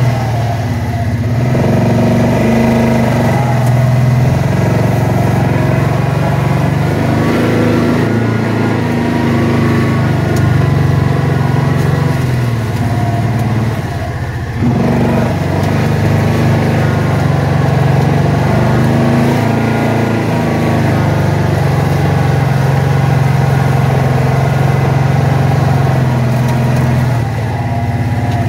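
Kawasaki Teryx4 side-by-side's V-twin engine running at low speed while driving, its pitch stepping up and down a little with the throttle. The level dips briefly about halfway through and again near the end.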